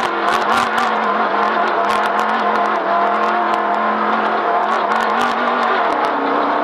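Off-road race vehicle's engine running at a steady pitch, dipping slightly near the end, with frequent knocks and rattles from travelling over rough ground.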